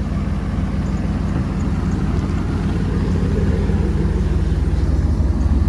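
Jeep Grand Cherokee ZJ engine idling steadily, a low even rumble that grows a little louder near the end.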